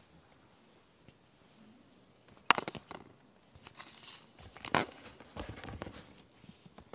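Handling noise at a lectern microphone: a sharp knock about two and a half seconds in and another near five seconds, with rustling and crinkling of papers around and after them.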